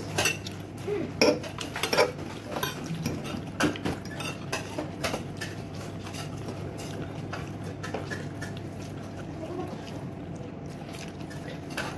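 Metal spoon and fork clinking and scraping against glass bowls and plates as someone eats. Sharp clinks come often in the first five seconds, then thin out, over a low steady hum.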